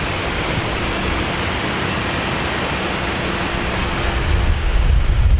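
Steady rushing wind noise. Low, gusty buffeting on the microphone grows louder in the last second or so.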